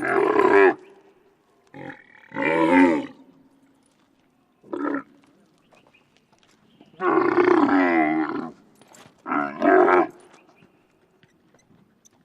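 Camel calling in a series of about six pitched, throaty calls of different lengths, separated by short pauses. The longest runs about a second and a half around the middle, and a two-part call comes near the end.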